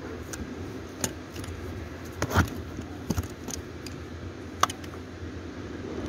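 A few sharp, separate clicks and small knocks of a prying tool and hands working at the plastic trunk-release lever housing, over a steady low hum.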